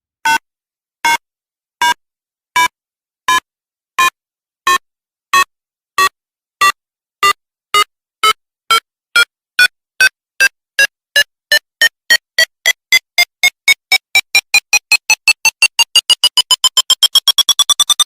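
Electronic countdown beeps, the bomb-timer sound effect: short synthesized beeps that start slow, about one a second, then speed up steadily and rise in pitch until they run together into rapid beeping near the end.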